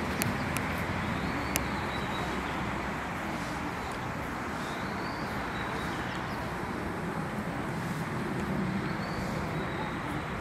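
Steady outdoor background noise of distant road traffic, with a few sharp clicks in the first two seconds.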